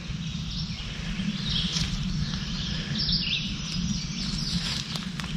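Woodland songbirds chirping and trilling over a steady low rumble.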